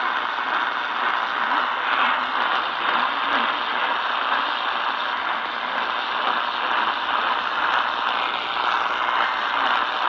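Steady AM-band static hiss from the speaker of an Eton Elite Traveler portable radio tuned to 1680 kHz, with a weak station barely coming through the noise.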